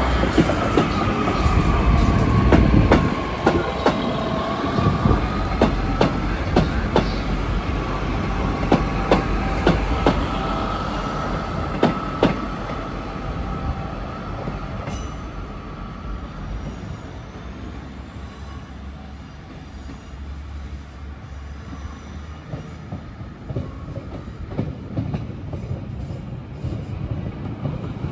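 Class 150 Sprinter diesel multiple units on the rails. For the first fifteen seconds or so a passing unit's wheels squeal in a steady high tone, with sharp clacks over rail joints. This then gives way to a quieter rumble that grows louder near the end as another unit approaches.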